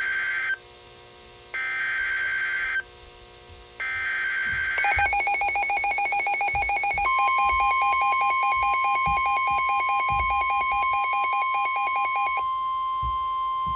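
NOAA Weather Radio alert signal: three short bursts of buzzing SAME data header, then a fast pulsing electronic alarm from about five seconds in. A steady 1050 Hz warning tone joins about seven seconds in and carries on alone after the pulsing stops near twelve seconds, announcing a new severe thunderstorm warning.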